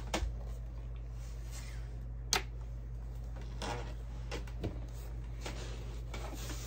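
Handling sounds of a Diana 48 side-lever spring air rifle as it is readied and shouldered: a few small clicks and knocks and some rustling, with one sharp click about two seconds in. A steady low hum runs underneath.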